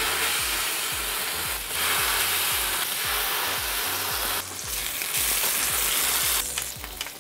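Honeycomb-cut pork skin sizzling on a hot grill: a steady, loud frying hiss that swells and eases a few times.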